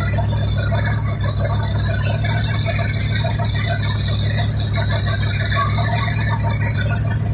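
Freshly rebuilt Pontiac 350 V8 running steadily at idle, with a steady high hiss above the engine note that fades near the end.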